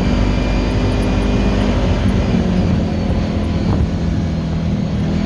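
Kawasaki 1000 ATV engine running steadily while riding at a constant speed, a continuous drone with no change in pitch.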